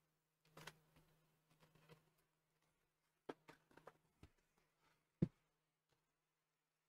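Faint handling noises of a polystyrene foam shipping box being cut open with a knife: a soft scuff about half a second in, a run of light clicks and taps in the middle, and one sharp thump near the end as the box is stood on the desk. A faint steady low hum lies underneath.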